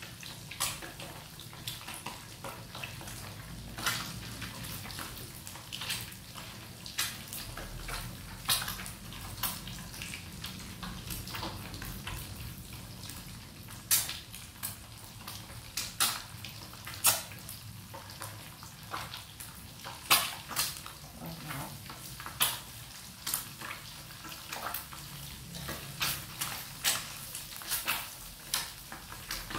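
Batter-coated quail eggs frying in hot oil: a steady sizzle broken by frequent irregular sharp pops and clicks.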